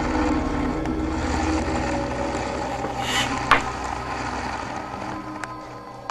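Ominous background music: sustained droning tones over a low pulsing rumble, fading away over the last couple of seconds, with one sharp click about three and a half seconds in.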